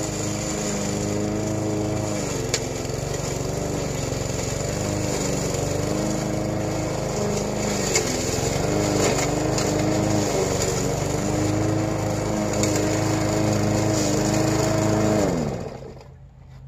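Yard Machines gas push mower's small engine running steadily, its pitch dipping and recovering now and then, with a couple of sharp ticks. Near the end the engine shuts off and spins down, its pitch falling away.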